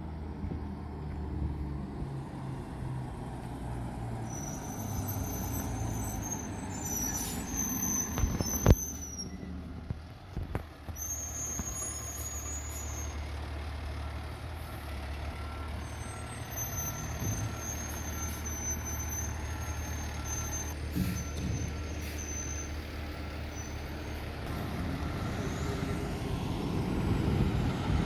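A fire truck's diesel engine running steadily at low revs, with a single sharp knock about nine seconds in. Midway through, a faint backup alarm beeps evenly for several seconds.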